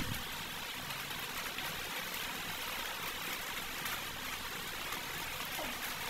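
Steady, even hiss of background noise, with no clear knocks or clicks standing out.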